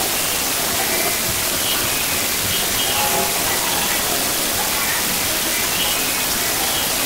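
A steady hiss throughout, with faint, broken children's voices echoing in the large hall behind it.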